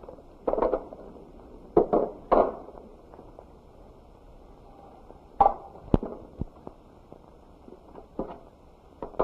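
Scattered light knocks and clicks, about eight over several seconds, some in quick pairs, over the steady hiss of an old, dull-sounding film soundtrack.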